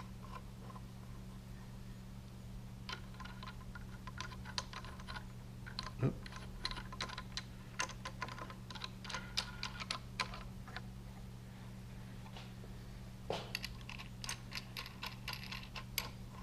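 Light metallic clicks and rattles in several bursts as nuts and washers are run down hand-tight on the threaded studs of milling-table hold-down clamps, over a steady low hum.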